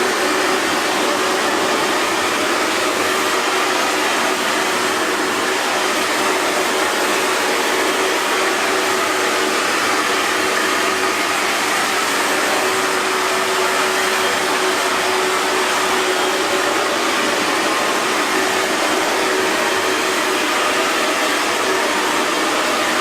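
Hair dryer blowing steadily, an even rushing of air with a faint steady motor hum underneath.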